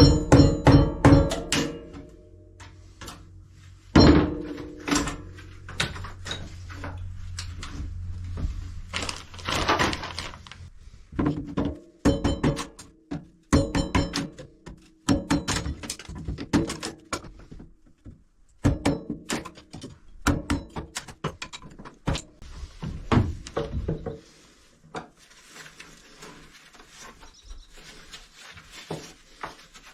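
Irregular knocks, thunks and cracks of wooden galley cabinetry and trim being pried and broken apart inside a wooden boat's hull, with the loudest hits at the start and about four seconds in. The knocks thin out after about twenty-four seconds.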